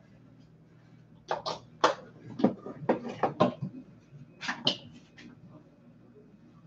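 Scattered light knocks and clicks of things being handled, coming in several small clusters between about one and five seconds in.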